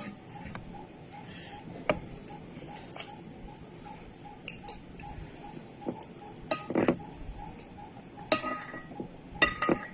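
A metal spoon clinking and scraping against a plate now and then while fried rice is eaten, over a faint, even ticking.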